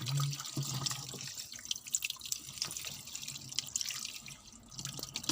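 Water dripping and splashing in irregular drops.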